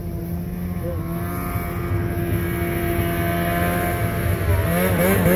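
Snowmobile engine running steadily. Near the end its pitch wavers with throttle blips and it grows louder.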